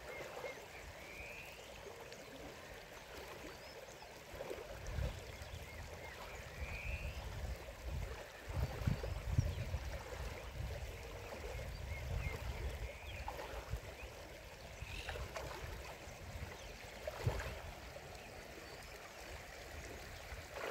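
River water flowing steadily, with an irregular low rumble for several seconds in the middle.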